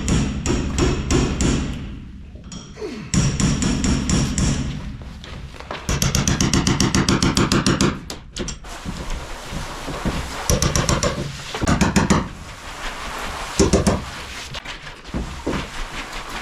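Hammering in several bursts of quick, evenly spaced blows, as screw stubs and plywood panels are knocked off a wall.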